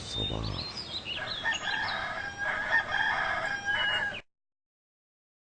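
A rooster crowing, with higher chirping calls over it, as a dawn sound; it cuts off abruptly about four seconds in.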